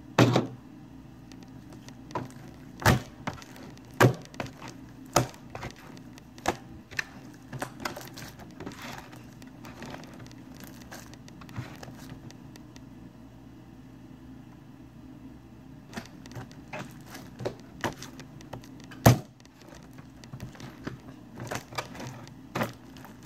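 Slime being kneaded and stretched by hand, giving irregular sharp clicks and pops.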